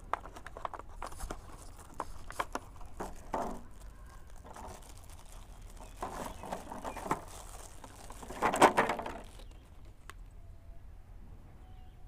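Clear plastic wrapping crinkling and rustling in the hand, with scattered light clicks of the plastic tray, as a hair trimmer is unwrapped. The loudest rustle comes about nine seconds in, after which it goes quieter.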